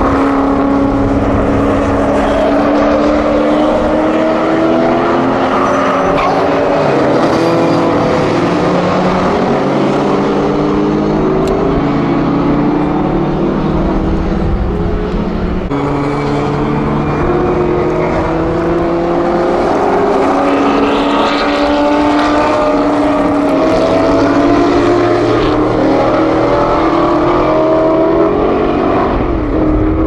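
TVR Griffith race car's V8 engine at full throttle, loud, its pitch climbing through each gear and dropping back at every upshift, over and over. About halfway through there is a sudden change to another pass.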